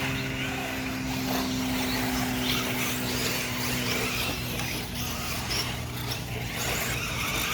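Small nitro RC car engines running: a steady buzzing drone, with engines revving up and down in the background.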